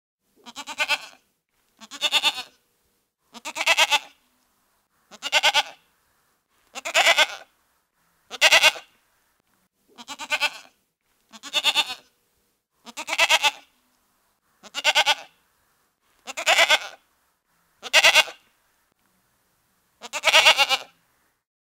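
A farm animal bleating: thirteen short, quavering calls, about one every one and a half seconds.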